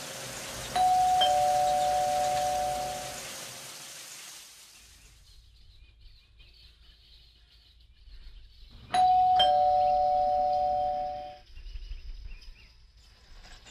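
Two-tone doorbell chime, ding-dong, rung twice about eight seconds apart, each pair of notes ringing on for a couple of seconds.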